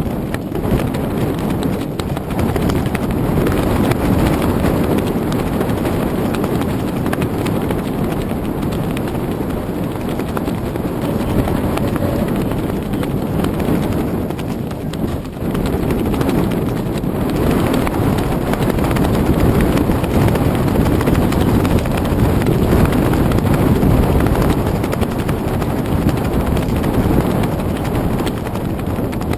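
Wind and choppy harbour water heard through a GoPro Hero 2 camera's microphone: a loud, steady low rushing with many small irregular knocks.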